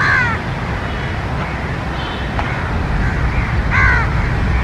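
A crow cawing twice, once at the start and again near the end, each a short falling call. Under it is a steady low rumble from the approaching twin WDM-3A ALCo diesel locomotives.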